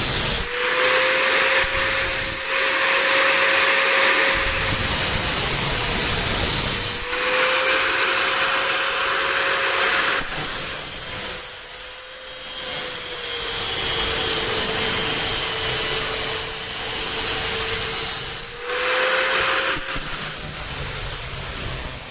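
Electric power tool running steadily, its motor tone wavering slightly in pitch, with three stretches of harsher hissing noise over it, near the start, in the middle and near the end.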